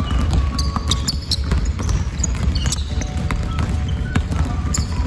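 A basketball being dribbled rapidly and repeatedly on a hard court in a short, tight dribbling drill, with short high squeaks over the bounces.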